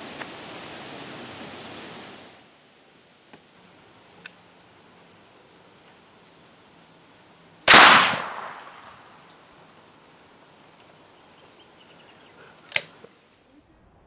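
A Victorian .410 bore cane gun, a single-shot smoothbore shotgun concealed in a walking cane, fires once. It is a loud, sharp report that dies away over about a second. About five seconds later comes a second, shorter sharp crack.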